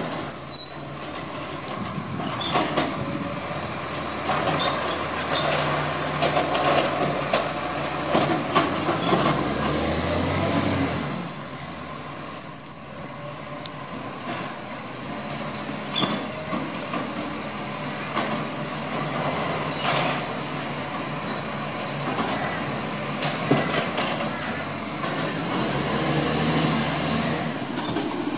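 Iveco side-loader recycling truck's diesel engine running as it moves and stops between bins, with several short hisses of its air brakes.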